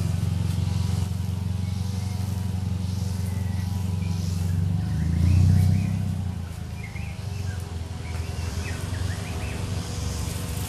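A motor vehicle engine running with a steady low hum, swelling to its loudest about five seconds in and then easing off.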